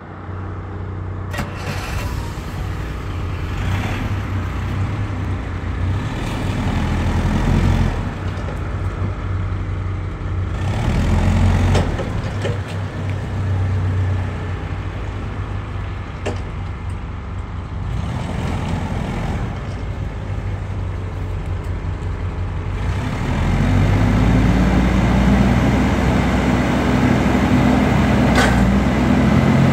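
Allis-Chalmers ACC 30 forklift's LP-gas engine running as the forklift is driven, speeding up and easing off several times. About three-quarters of the way through it runs faster and louder, steadily, as the mast is raised, with a few sharp clicks here and there.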